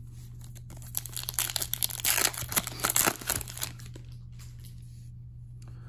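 Foil wrapper of an Upper Deck MVP hockey card pack being torn open by hand, crinkling and tearing in irregular bursts from about a second in until about three and a half seconds, then only faint handling.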